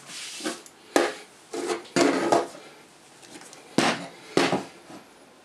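Camera lenses fitted with rubber lens hoods and caps being set down one after another on a wooden table: a series of knocks and clunks, four of them sharper than the rest.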